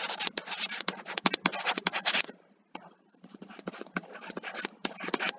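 Stylus scratching rapidly across a tablet surface in short strokes as words are handwritten, pausing briefly a little over two seconds in before the writing resumes.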